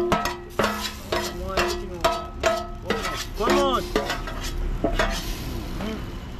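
A metal spoon stirring a large metal pot of curry coconut liquid, knocking against the pot's side about twice a second so that the pot rings, then knocking less often after about four seconds. A brief squeaky tone rises and falls about three and a half seconds in, over a soft hiss.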